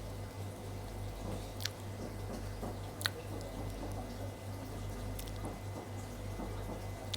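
Close mouth sounds of someone eating soft durian flesh: wet squishing and chewing, with two sharp smacks about one and a half and three seconds in, over a steady low hum.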